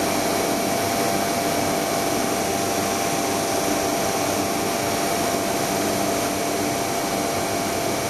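Steady whirring hiss of running machinery, with a few constant whining tones over it and no change in level.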